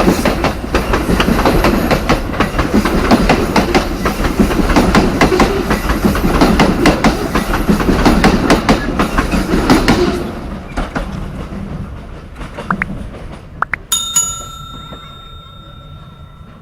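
The wagons of a long coal train clattering past over the rail joints, then fading away about ten seconds in. Near the end a steady high ringing tone starts and holds.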